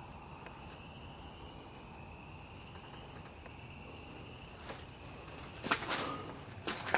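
Faint night insect chorus, a thin, steady high drone. Near the end come a few footsteps crunching in dry leaf litter.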